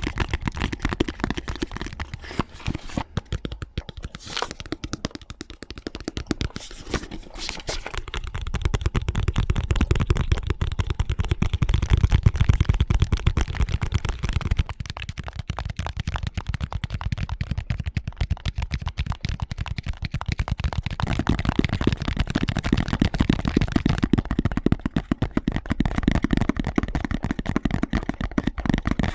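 Fast, dense ASMR tapping, several trigger sounds layered over one another and crossfading. A heavier, deeper run of taps sets in about a quarter of the way in and again in the last third.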